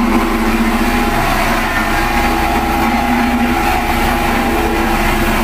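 Diesel engine of a Caterpillar CS533E single smooth-drum vibratory soil compactor running, a loud steady drone with a constant pitch.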